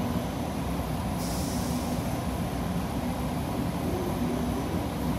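Steady rumble and hum of the DFW Skylink people-mover train, heard from inside the car, with a short hiss a little over a second in.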